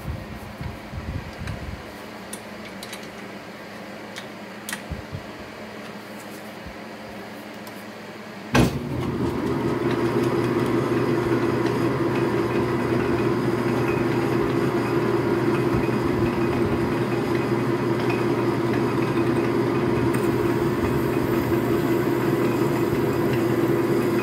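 A few light knocks, then about a third of the way in a Logan metal lathe is switched on with a sharp click and runs steadily with an even motor and drive hum, while a jobber drill bit held in the tailstock is fed into the spinning work.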